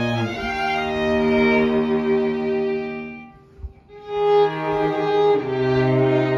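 A string trio of two violins and a cello playing held, sustained notes together. The sound fades out into a short pause a little past halfway, then the trio comes back in.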